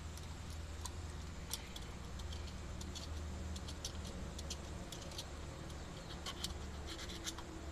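Light, scattered metallic clicks and clinks of small carburetor parts being handled, over a steady low hum.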